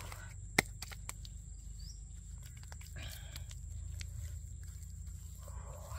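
Hands working bare earth and leaves: scraping and rustling with small knocks, and one sharp click about half a second in, over a low steady rumble.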